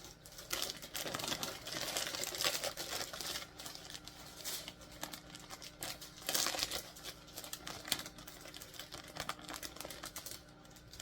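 Blind-box toy packaging being opened by hand: irregular crinkling and rustling with small clicks as the wrapper and box are worked open.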